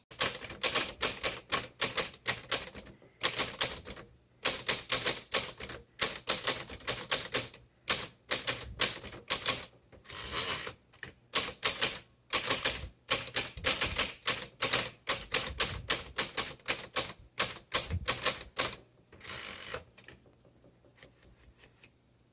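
Manual typewriter typed quickly in runs of key strikes with short pauses. Twice, at about ten seconds and near the end, there is a longer smoother rasp like a carriage return. The typing stops a couple of seconds before the end.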